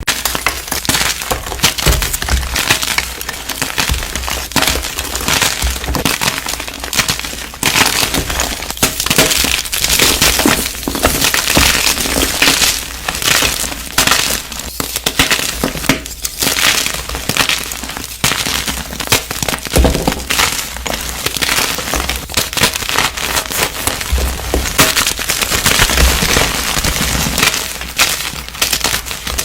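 Chalk being crushed: dense crackling and crunching as it crumbles, with occasional dull low thumps.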